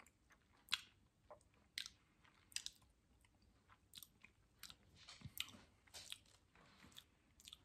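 Faint chewing of a mouthful of burger: scattered soft clicks and crunches, about a dozen spread through the mouthful.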